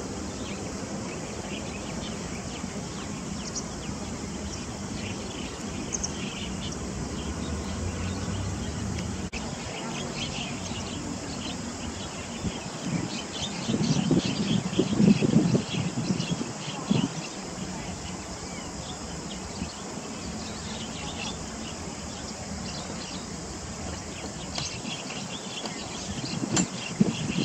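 Steady outdoor background with scattered short, high chirps. About halfway through comes a louder run of splashing lasting a few seconds as a Siberian rubythroat bathes in shallow creek water, with a shorter splash near the end.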